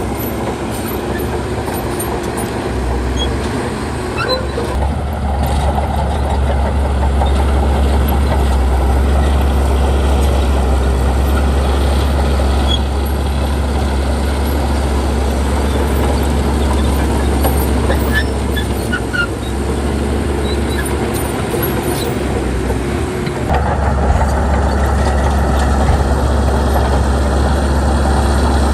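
Heavy diesel engine of earthmoving equipment running hard and steadily, getting louder about five seconds in, easing off briefly twice and picking up again a little before the end.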